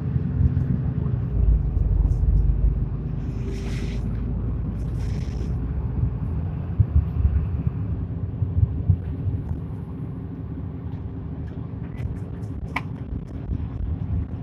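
Interior running sound of a Mitsubishi Fuso QKG-MP38FK city bus, its six-cylinder diesel engine and drivetrain giving a steady rumble with a low engine tone as it drives along. Two short hisses come about four and five seconds in, and a sharp click near the end.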